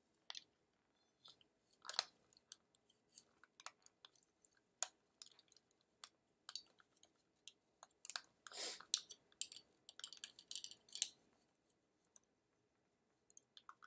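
Faint scattered clicks and crackles as hair is worked through a curling iron, with a longer rustle a little past halfway.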